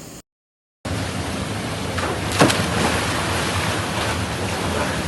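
Waterfall rushing steadily, a loud even wash of water, with one sharp louder burst about two and a half seconds in.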